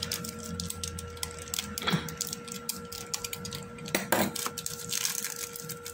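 Thin plastic bag crinkling and crackling as it is handled and pulled off a portable hard drive, with many small irregular crackles and two sharper ones about two and four seconds in.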